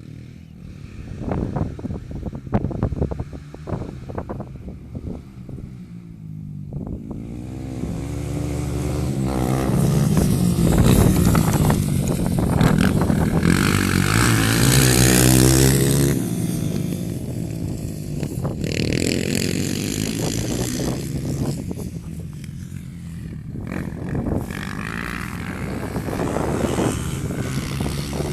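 Single-cylinder four-stroke trail motorcycle engine running under throttle. Scattered knocks come first, then the engine builds up in pitch and loudness to a peak about halfway through, drops off suddenly and carries on lower.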